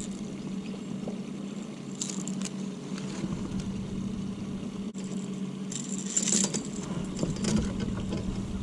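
Small outboard motor running steadily at low speed, a low even hum, with light metallic clinks of pliers and lure hooks about two seconds in and again around six seconds in.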